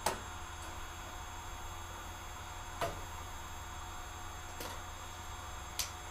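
A hand tool clicking sharply against the milling machine's metal clamp hardware four times, over a steady low hum.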